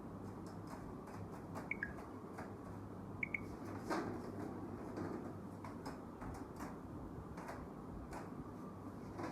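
Steady background noise with scattered light clicks and ticks, and two short high chirps, about two and three seconds in.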